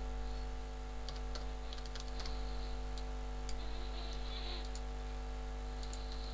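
Computer keyboard typing: a quick run of key clicks about a second in, then a few single clicks near the end, over a steady low electrical hum.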